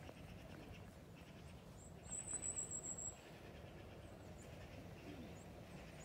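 A small bird gives a high, thin trill lasting about a second near the middle, with a few short high chirps before and after, over faint low outdoor rustle.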